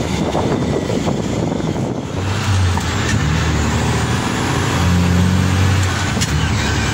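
About two seconds of rough outdoor rumble, then a Mack CH dump truck's diesel engine running as it drives, heard from inside the cab, its pitch shifting slightly.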